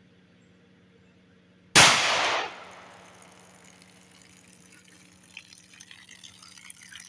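A single shot from a Palmetto State Armory 5.7 Rock pistol in 5.7x28mm, about two seconds in, sharp and loud, as the bullet hits water jugs set up to catch it. Water bursts out with the shot, and near the end water trickles and drips from the holed jugs.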